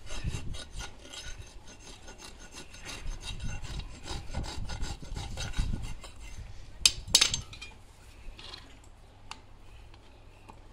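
Farrier's rasp stroked repeatedly across the nail clenches and hoof wall, held flat against the hoof to file the clenches flush. About seven seconds in come two sharp clicks, and the rest is quieter.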